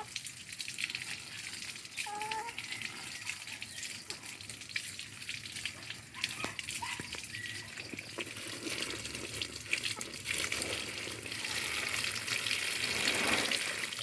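Water pouring and splashing, as when ingredients are rinsed under a tap, growing louder in the last few seconds.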